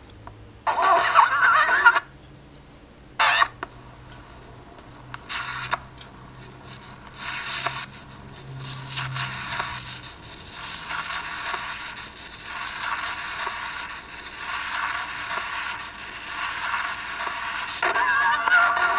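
A razor blade riding in the groove of a spinning vinyl record, scraping out a thin, scratchy, warbling playback of the recorded music. The playback breaks off after about two seconds, returns as mostly scratchy hiss with faint music, and the wavering tune comes through clearly again near the end.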